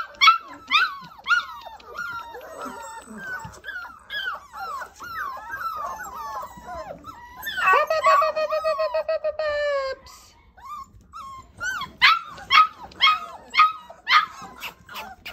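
A litter of six-week-old North American Mastiff puppies whining and yelping together in many overlapping high cries. About halfway through, one puppy holds a longer howl for about two seconds, and near the end come several sharp yelps in quick succession.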